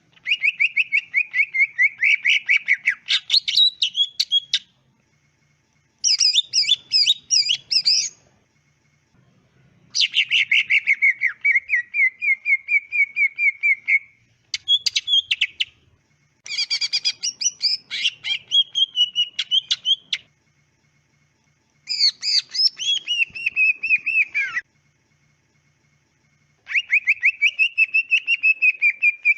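Cucak ijo (green leafbird) singing in about seven bouts, each one to four seconds of fast, clear, chattering and trilling phrases, with short pauses between bouts.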